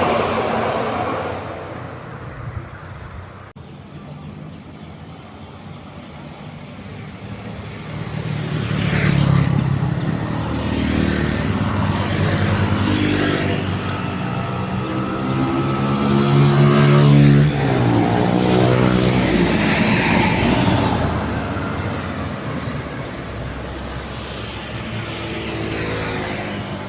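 A bus engine revs up as it climbs the hill and passes close by. It rises in pitch and is loudest about seventeen seconds in, then drops away.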